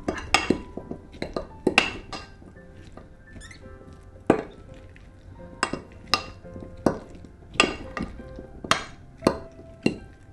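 Metal fork clinking and scraping against a glass dish while a bean, corn and avocado mixture is stirred and mashed: sharp clinks at an uneven pace, thick at the start and then about one or two a second.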